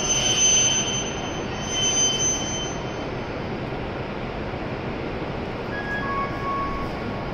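E7 series Shinkansen train standing at the station platform, giving a steady hiss. A high-pitched whine fades out after the first few seconds, and a few short electronic tones sound near the end.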